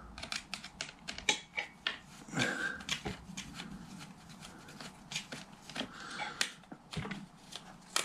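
Irregular small clicks and rattles of an RC car's shock absorber and suspension parts being handled as the shock is unscrewed from its mount.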